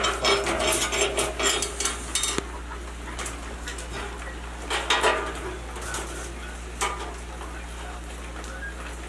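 Metal tools and a tape measure clattering and rattling as they are handled on a workbench. A dense burst of rattling stops sharply about two and a half seconds in, followed by a few scattered knocks and scrapes.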